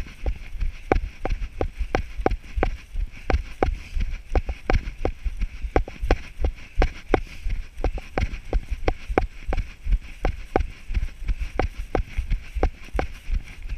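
A runner's footfalls through grass, about three strides a second, each stride jolting the body-worn camera so it knocks with a low thump and a short click, over a steady hiss.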